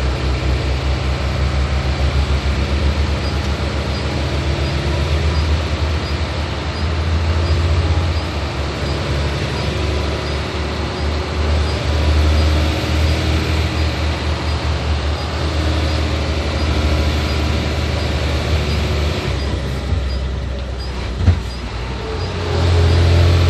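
Hino 500 logging truck's diesel engine running steadily while driving, with road noise. Near the end the engine sound drops off briefly, a single sharp knock is heard, and then the engine picks up again.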